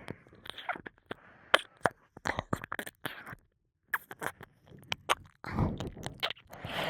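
Close-miked ASMR mouth sounds: irregular wet clicks, smacks and crackly licking against an ear-shaped microphone. There is a short pause a little past midway, and a denser rustling stretch near the end.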